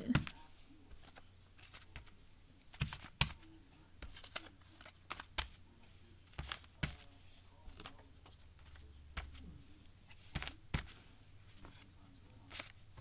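Construction-paper triangles being handled and pressed onto a glued sheet of paper: scattered short, soft crackles and taps at irregular intervals.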